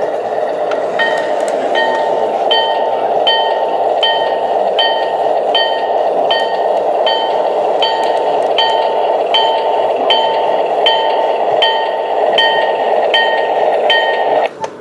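Williams O scale RS-3 model diesel locomotive's True Blast Plus sound system, playing a steady diesel engine rumble while the locomotive bell rings about once every three-quarters of a second. The bell starts about a second in and stops near the end, and the sound then drops off sharply.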